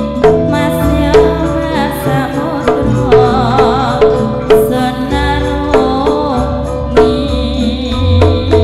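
Javanese gamelan music in the tayub style. Metallophone notes ring in a steady, repeating pulse under regular drum strokes, and a female singer's ornamented, wavering vocal line comes in through the middle.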